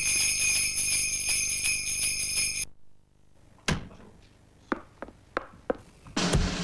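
Closing chord of an advertising jingle, with bell-like chimes ringing over it, cut off sharply about two and a half seconds in. After a short near-silence, a few sharp clicks and knocks follow, and a loud burst of noise with a low thump comes near the end.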